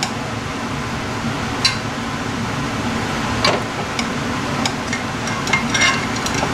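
A metal serving utensil scraping and clinking against a glass baking dish as meatloaf is lifted out, with a few sharp clinks, over the steady hum of a room air conditioner.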